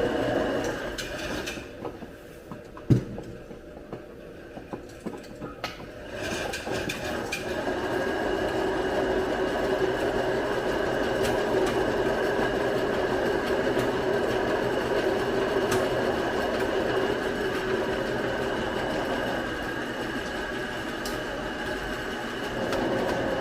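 Electric meat grinder mincing chicken. It runs quieter at first with a single knock about three seconds in, then settles into a steady grinding hum under load from about six seconds on.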